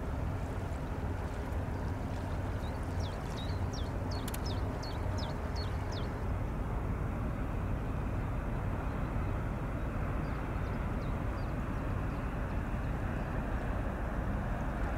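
Steady low drone of a 160-metre motor yacht's engines carried across the river, with a faint hum in it. A small bird chirps quickly several times between about three and six seconds in, and again briefly near the end.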